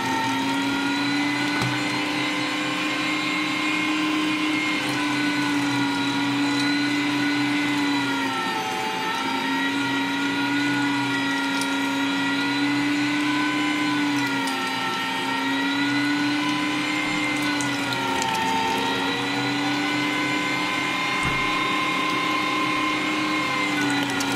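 Bosch electric meat grinder's motor running steadily with a whine while mincing meat, its pitch dipping briefly four times and then recovering.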